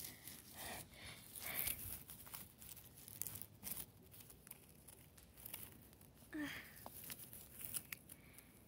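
Dry grass and straw crackling and rustling as a toy wolf figure is pushed through it by hand, in faint scattered crackles. A brief low hum of a voice about two-thirds of the way through.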